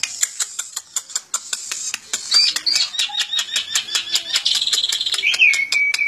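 Caged pied starling singing: sharp clicks repeated several times a second throughout, and from about two seconds in a run of high whistled notes, a fast trill, then a falling whistle held steady near the end.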